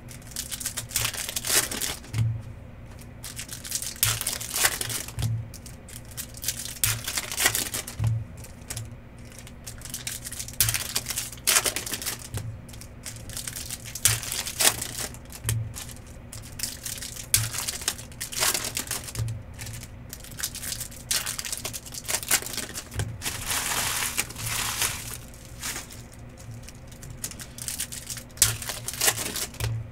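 Trading card packs being opened and the cards handled: wrappers crinkling and tearing, with quick clicks and soft taps as cards are flicked through and set down, in a steady run of short strokes.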